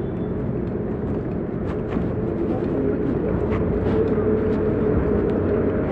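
Steady drone of heavy machinery running, with a faint constant hum and a few light metallic clicks.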